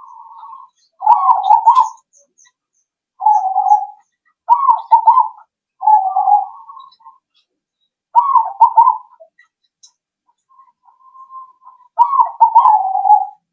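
Zebra dove (perkutut) singing its rippling coo song, a run of short phrases about a second apart, with one fainter, drawn-out phrase a little after the middle.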